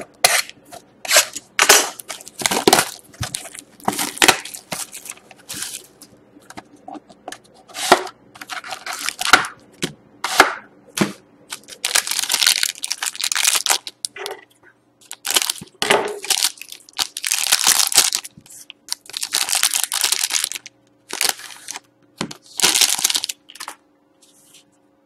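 A cardboard trading-card box being torn open, then a foil card pack torn and crinkled open, in a long run of sharp tearing and crinkling noises. The longer, hissier crinkles of the foil wrapper fill the second half.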